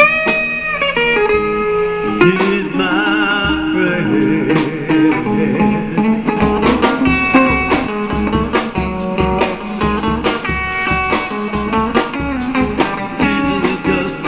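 Live rock band playing an instrumental break: a lead guitar solo with bent, wavering notes over a steady drum beat and bass.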